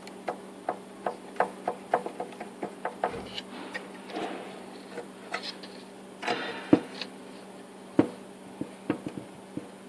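Sharp metallic clicks and knocks from the loose internal partition (divider plate) of a Toyota 2AZ-FE exhaust manifold being moved. They come about two a second at first, then scattered. A partition that has come away and moves about is the cause of this engine's well-known manifold knock.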